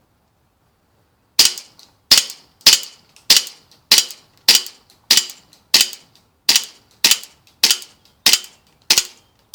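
Airsoft Colt 1911 replica pistol firing a steady series of about thirteen shots, one every 0.6 seconds or so, starting about a second and a half in.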